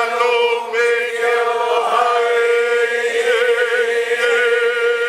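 A mixed group of men and women chanting in Hawaiian in unison, holding one long note that wavers twice in its second half.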